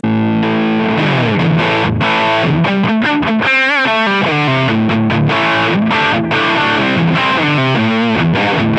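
Distorted electric guitar played through a Line 6 HX Stomp preset: a run of changing notes with a wavering vibrato bend about halfway through.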